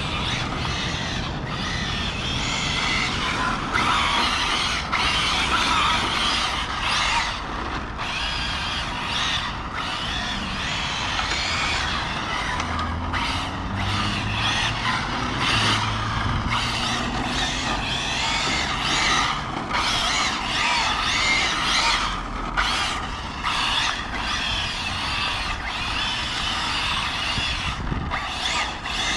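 Arrma Felony 6s RC car drifting: its brushless motor whines up and down with the throttle, cutting off briefly many times, while the tyres squeal and skid as they are warmed up.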